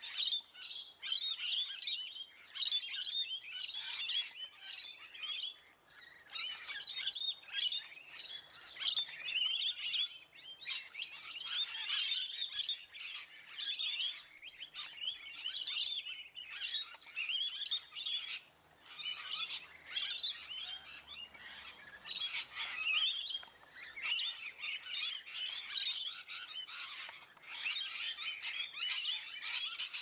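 A flock of rainbow lorikeets chattering, a dense run of overlapping shrill chirps and squawks with only brief lulls.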